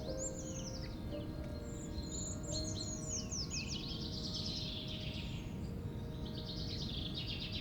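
Forest birdsong: several songbirds singing high, quick, falling notes and fast trills, with a soft low rumble of outdoor ambience underneath. Faint sustained background-music tones sit low beneath the birds.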